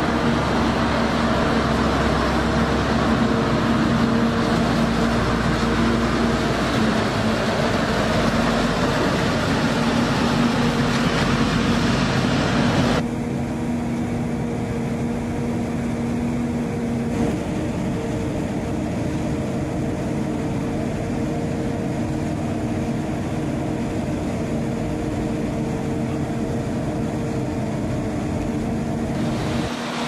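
Forage harvester running at work with a steady drone and a constant hum while chopping maize and blowing it into a trailer. About 13 seconds in the sound abruptly turns duller, losing much of its hiss, as the drone carries on.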